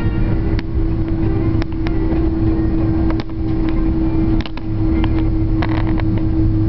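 Cabin noise of an Airbus A330-300 airliner rolling fast down the runway after touchdown: a loud, steady rumble with a constant hum, broken by a few short clicks and rattles.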